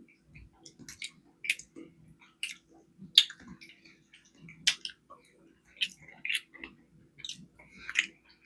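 Close-miked chewing, with wet smacks and mouth clicks coming irregularly about one or two a second. A faint steady hum lies underneath.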